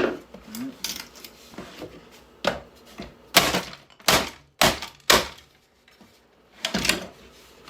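A boombox's plastic casing being pried and broken apart by hand: about seven sharp, irregular knocks and cracks of hard plastic, with a pause of about a second before the last ones.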